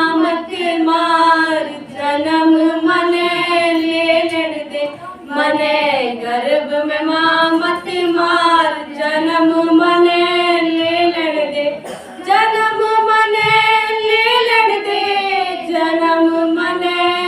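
Unaccompanied singing by a young female voice: a Haryanvi song sung in long, clear held phrases with short breaths between them.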